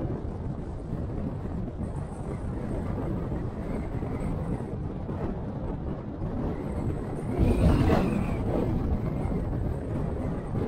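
Steady road and engine noise of a car being driven, with a louder swell and a brief high tone about seven and a half seconds in that fades within about a second.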